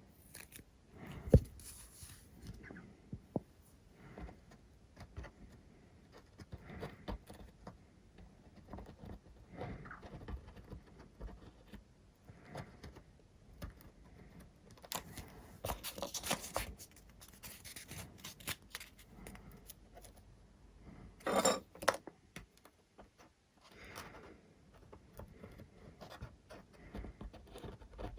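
Scattered small clicks, scrapes and rustles of broken foam model-plane parts being handled and fitted together on a workbench, with a sharp knock about a second in and a louder scraping rustle about three-quarters of the way through.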